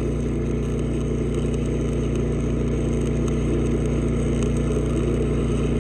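Stick-welding arc burning steadily on a horizontal weld, a continuous crackle with a steady hum underneath. The arc is held short and tight to the puddle.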